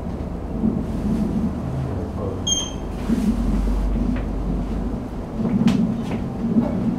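Inside a travelling Schindler Miconic lift car: a steady low rumble of the ride, a single short high electronic chime about two and a half seconds in, and a few light knocks in the second half.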